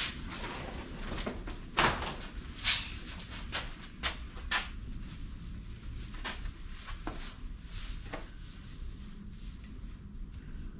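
Scattered knocks and clicks of tools and parts being handled, the two loudest about two and almost three seconds in, over a low steady hum.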